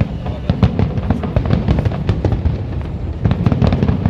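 Aerial fireworks going off in rapid succession: a dense run of bangs and crackles, several a second.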